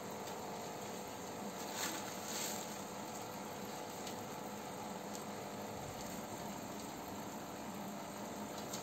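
Steady aquarium aeration: the air pump hums and the air stone bubbles. Two brief louder sounds come about two seconds in, one after the other.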